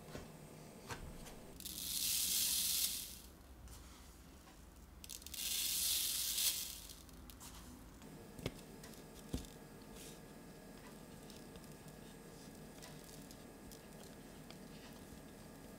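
Chia seeds poured onto a metal baking tray twice, each pour a hissing patter lasting about a second and a half, followed by two small clicks.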